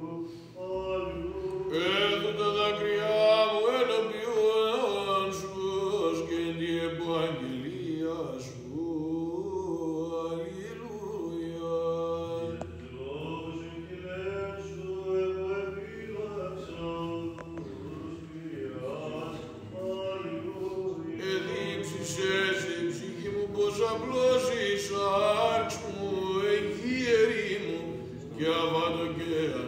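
Orthodox church chant: voices singing a slow melody over a steady held low drone.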